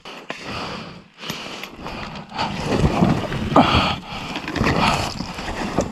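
Loaded Fjellpulken pulk sled being handled by hand, giving irregular scraping, rustling and knocks of the plastic sled and its fabric cover against snow and rock, with louder scrapes a few seconds in.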